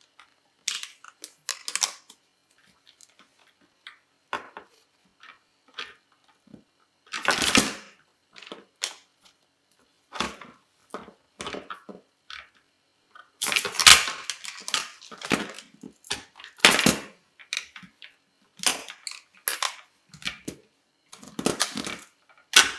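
Hard plastic parts of a reverse-osmosis filter's membrane housing being handled and twisted: scattered clicks, knocks and rattles, with louder clusters of knocks about 7 seconds in and again from about 14 to 17 seconds.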